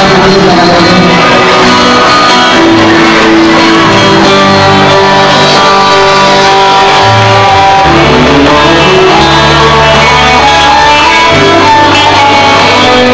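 Live rock band playing loudly, electric guitar to the fore over changing low bass notes.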